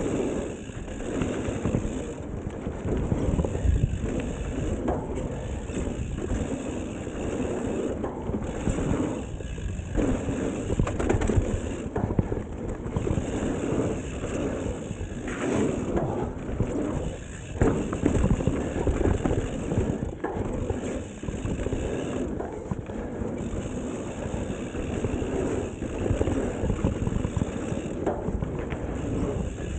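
Mountain bike riding a dirt trail: steady tyre noise over the ground, with irregular rattles and knocks from the bike over bumps and roots.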